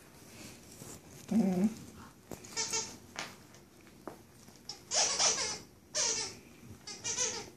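German Shepherd puppies vocalising while they play-bite over a toy: one low pitched sound about a second and a half in, then a series of short, high-pitched whines and yelps about a second apart.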